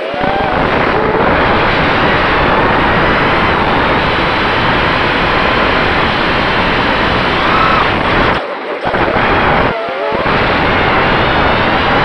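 Wizard X220 FPV quadcopter's brushless motors and propellers, heard through its onboard camera: a loud whirring rush mixed with wind noise, the pitch sliding up and down with throttle. The sound drops out briefly twice near the end as the throttle is chopped.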